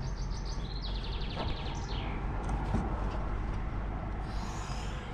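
A songbird sings one phrase of quick repeated high notes that falls into a descending trill, over a steady low rumble. A brief hiss comes near the end.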